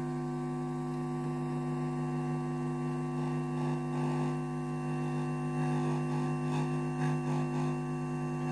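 Loud, steady mains hum from the Liese DM-1300 mixer's output through the workbench amplifier. Its upper overtones waver slightly from about three seconds in as a hand comes near the talk switches, which are very sensitive to it; the owner suspects these switches, mounted next to the mains wiring, of picking up the hum.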